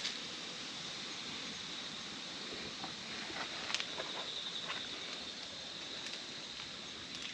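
Steady, high-pitched insect chorus, with a few soft clicks and rustles around the middle.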